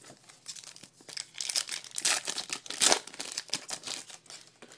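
A trading card pack wrapper being torn open and crumpled, a run of crinkling and crackling that is loudest in the middle.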